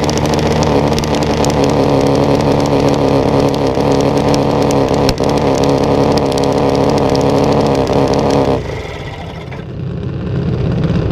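Jr. Dragster's small single-cylinder engine running steadily as the car rolls at low speed, then cutting off about eight and a half seconds in. A quieter low rumble follows and grows toward the end.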